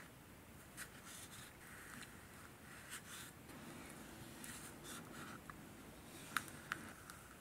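Metal spoon scraping the inside of a paper ice cream cup, gathering the last of the ice cream, with a few short clicks of the spoon against the cup; the loudest two come near the end.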